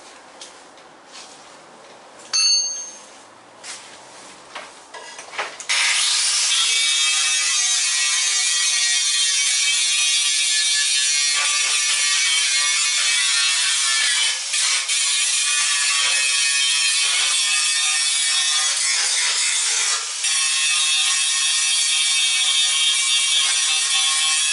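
A few light knocks and a short, loud metallic clank, then an angle grinder with a cutting disc starts about six seconds in and runs steadily, grinding paint off the steel boot floor of a classic Mini with a loud, high-pitched grinding whine.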